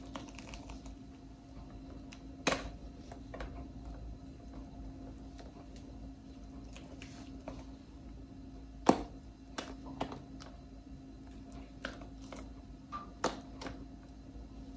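Scattered light clicks and knocks of kitchen utensils against a pan or bowl, with two louder knocks about two and a half and nine seconds in, over a faint steady hum.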